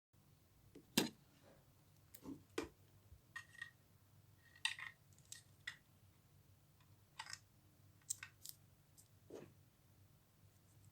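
Irregular light clicks and rustles of hands handling an RC rock crawler and its packaging, about a dozen in all, the sharpest about a second in.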